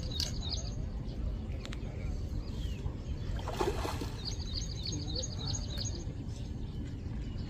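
An object thrown by hand lands in lake water with a short splash about three and a half seconds in, over a steady low rumble of wind on the microphone. A bird chirps in quick repeated notes near the start and again just after the splash.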